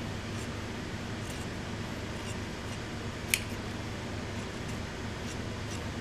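Large tailor's shears cutting through suit-trouser cloth on a table: faint, spaced snips, with one sharper click a little past the middle.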